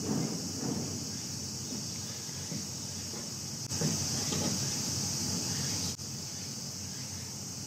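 Steady high-pitched insect chorus, which gets louder abruptly for about two seconds in the middle, with a faint murmur of voices underneath.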